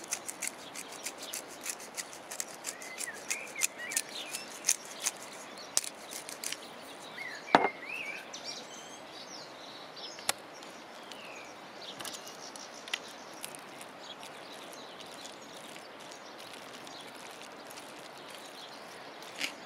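Hand pepper mill being twisted over a pan: a quick run of crunchy grinding clicks for about the first seven seconds, ending in one sharp knock. After that only a few light clicks, with birds chirping in the background.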